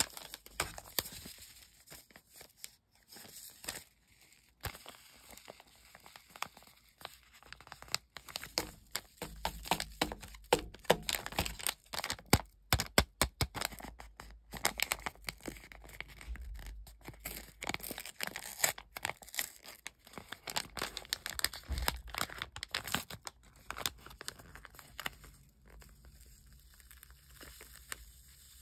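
Foil-lined paper hot cocoa envelope crinkling in the hands and being torn open, a long run of sharp crackles that is densest in the middle and softens near the end, as the powder mix is poured out into a ceramic mug.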